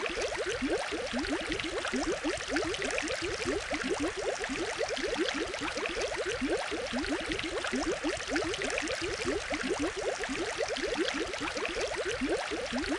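Water bubbling and gurgling steadily, as from an aquarium's aerator: a dense, unbroken run of short rising blips with a hiss above them.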